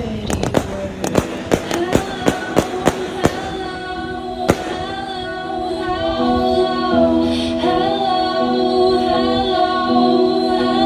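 Fireworks shells and cakes going off in a rapid string of sharp bangs and crackles over music. After about four seconds the bangs thin out, and the music with held vocal notes carries on.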